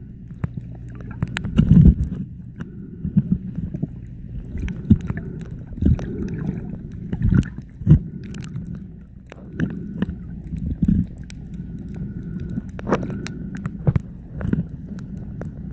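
Underwater sound picked up by a camera held below the surface: a low muffled rumble with many irregular clicks and sharper knocks, and a faint steady tone that comes and goes.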